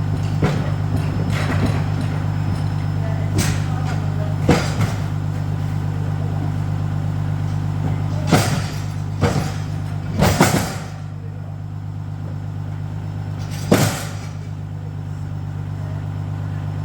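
Truck running with a steady low drone, broken by a series of sharp knocks and rattles, the loudest a double clatter about ten seconds in.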